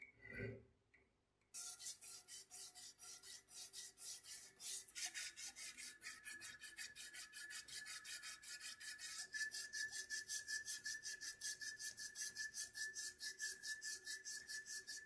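A needle file scrapes once across the threads of a brass blowtorch fitting. Then, from about a second and a half in, an abrasive cloth strip is pulled rapidly back and forth around the brass, shoe-shine style, at about four to five hissing strokes a second. A thin steady whistle-like tone runs under the strokes from about five seconds in.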